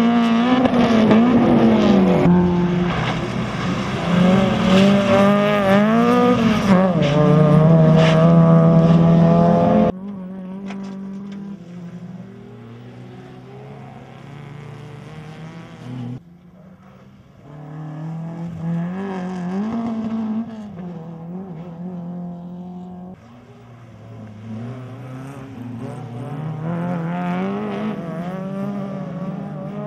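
Rally car engines revving hard as the cars drive past one after another, the engine pitch climbing and dropping back several times. Loud for about the first ten seconds, then quieter and further off.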